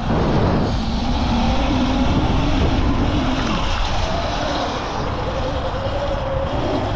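Wind buffeting the microphone over the whine of a Sur Ron electric dirt bike's motor, which steps up in pitch about halfway through.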